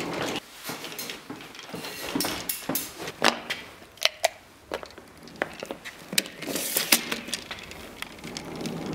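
A hard-shell wheeled suitcase rolls over a concrete floor. The rolling gives way in the middle to a run of sharp, irregular knocks and clicks, then starts again near the end.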